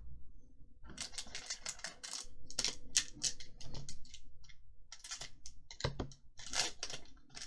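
Magic: The Gathering trading cards being handled and flicked through by hand: a quick, irregular run of dry clicks and rustles, starting about a second in.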